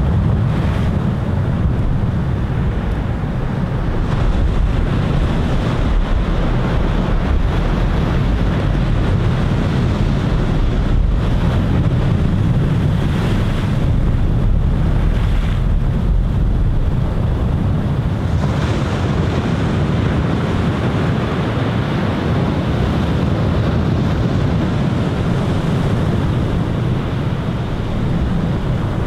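Ocean surf washing up a sandy beach and breaking over rocks, with wind buffeting the microphone as a steady low rumble.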